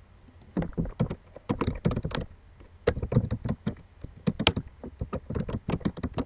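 Typing on a computer keyboard: a quick, irregular run of keystrokes that starts about half a second in.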